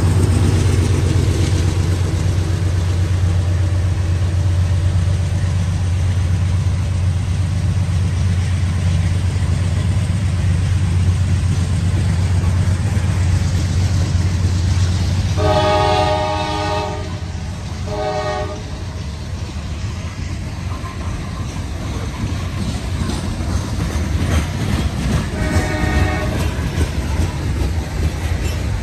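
CSX coal train passing: the low rumble of a GE diesel locomotive going by at the start gives way to loaded coal hoppers rolling past with wheel noise on the rails. A locomotive horn sounds in two blasts about halfway through, and briefly again near the end.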